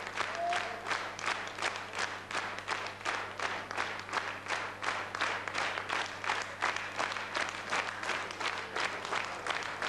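Theatre audience clapping together in a steady rhythm, about three claps a second, with a steady low hum underneath.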